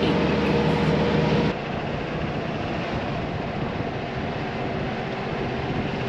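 Steady road and engine hum inside a moving vehicle's cab. About one and a half seconds in it changes abruptly to a lighter, even rush of tyre and wind noise.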